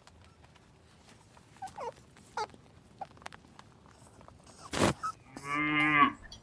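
Cow mooing once near the end, a short call of under a second. A loud thump comes just before it, and a few faint short squeaks come earlier.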